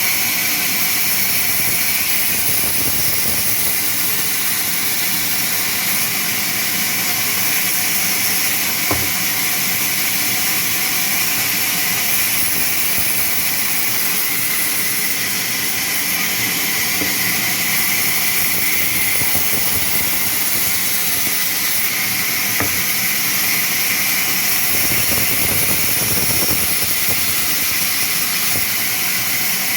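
Sawmill machinery running steadily, a loud even high hiss with no breaks or changes.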